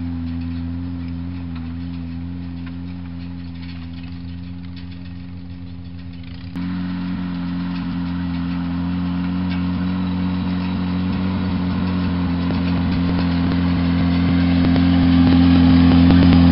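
Satoh 550G tractor's engine running steadily as it pulls a hay rake, fading a little as it draws away, then jumping abruptly louder about six and a half seconds in and growing louder as it comes closer.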